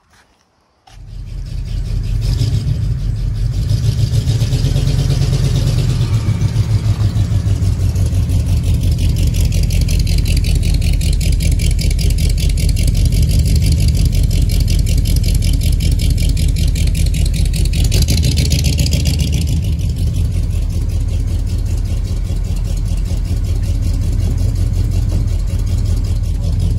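The school bus's newly swapped-in engine starting: it catches about a second in and settles into a steady idle. It runs rough, which the owner puts down to an ignition problem.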